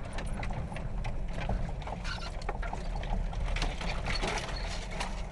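Mitsubishi Pajero driving over a rough dirt track, heard from inside the cabin: a steady low engine and road drone with frequent knocks and rattles.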